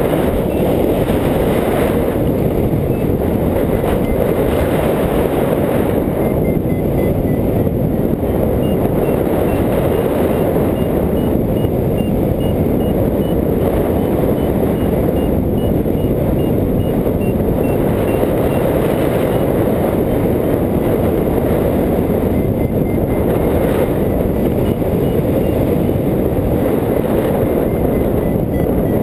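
Airflow rushing over the microphone of a hang glider in flight: a loud, steady rush of wind. Under it runs a faint series of high variometer beeps that rise and fall in pitch.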